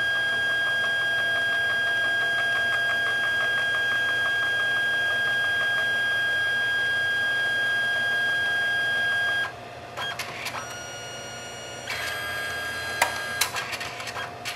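Canon SELPHY CP1500 dye-sublimation photo printer's mechanism running with a steady high motor whine and fast rhythmic ticking, while it is busy taking the sent photo before printing. The whine cuts off suddenly about nine and a half seconds in, followed by a few clicks and short whirs.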